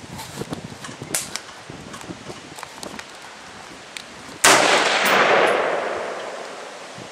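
A single rifle shot about four and a half seconds in, its report ringing out and fading over about two seconds. Before it come a few faint clicks and knocks.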